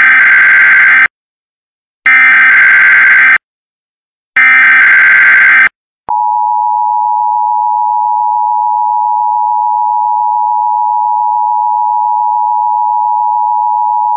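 Emergency Alert System SAME header: three bursts of digital data tones, each about a second long, with short gaps between. About six seconds in, the steady two-tone EAS attention signal begins and holds.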